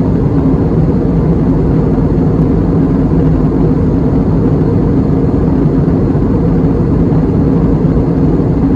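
Steady in-flight cabin noise of an Airbus A321neo airliner: an even, low rumble of airflow and its Pratt & Whitney PW1100G geared turbofan engines, with a faint steady hum in it.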